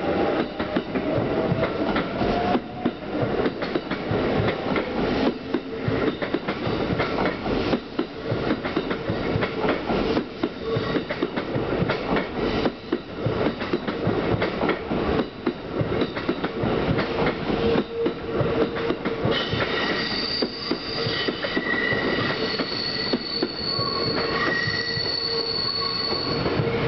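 Kintetsu electric train of 1026, 9020 and 1252 series cars pulling out and rolling past, its wheels clattering fast over the rail joints, with a rising motor whine in the first couple of seconds. From about two-thirds of the way through, the wheels squeal high as the last cars pull away.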